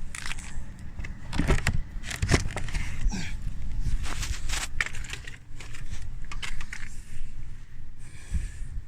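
Irregular metallic clinking and rattling of small metal objects being handled, over a steady low hum.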